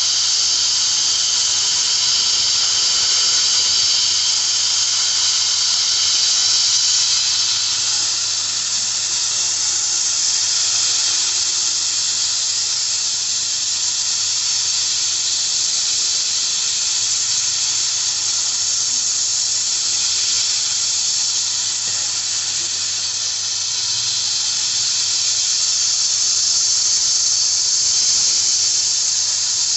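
A CNC router with a laser system running steadily at work: a continuous high hiss with a faint steady whine and a low hum underneath, unbroken throughout.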